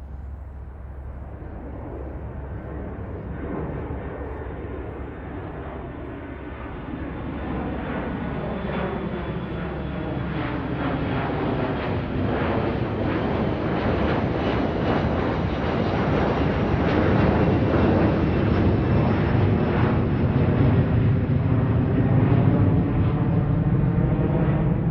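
Airplane engine noise growing steadily louder as the aircraft approaches, a dense rushing sound whose tone slowly sweeps and shifts.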